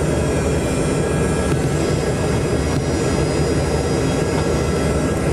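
Yakovlev Yak-40 cabin noise: its three rear-mounted Ivchenko AI-25 turbofan engines running steadily while the aircraft moves on the ground, a deep rumble with a high thin whine over it, heard from inside the cabin.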